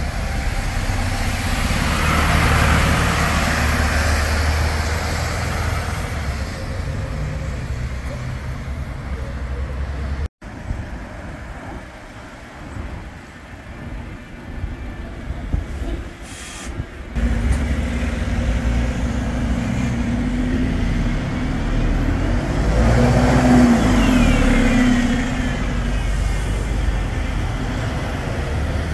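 Diesel city buses on the road: a Mercedes-Benz Citaro passes close by, loudest a few seconds in. Then, after a break, an ADL Enviro 200MMC single-decker's engine runs as it pulls away, building to its loudest about two-thirds through, with a faint whine over it.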